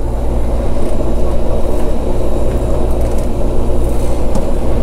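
Steady low drone of the ferry Kitakyushu II's engines and machinery carried through the ship, with a few faint clicks on top.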